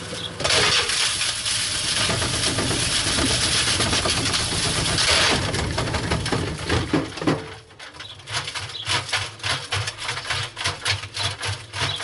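A sandwich toaster tossed around inside the drum of an LG front-loading washing machine spinning at full speed: loud, continuous clattering and banging for about seven seconds. Then it drops to rapid, repeated knocks over the steady hum of the drum motor.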